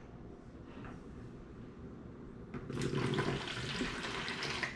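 Warm water poured from a glass measuring cup into an empty plastic dough tub: a steady splashing pour that starts a little past halfway and stops just before the end.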